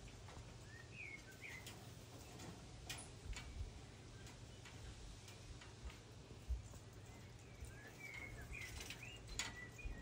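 Faint, brief bird chirps, a few short notes about a second in and again near the end, with scattered sharp ticks from a small bird's beak pecking on a glass tabletop.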